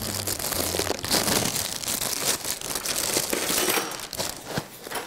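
Plastic liner bag of a corn flakes box crinkling as corn flakes are crunched up by hand, a dense run of crackling that thins to a few scattered clicks near the end.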